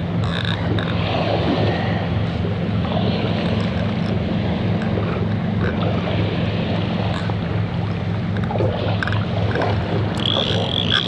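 An engine running steadily at idle, a low even hum, over a background of wind and water. A steady high whine joins near the end.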